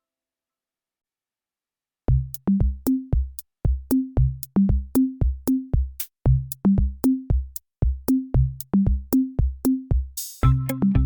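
Electronic background music: after about two seconds of silence, a drum-machine beat with a bass line starts, about two to three hits a second, and a fuller synth layer comes in near the end.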